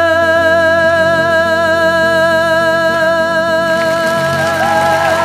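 A male singer holds one long, steady note over acoustic guitar and band accompaniment in a live ballad performance. About three and a half seconds in, audience applause starts up under the note.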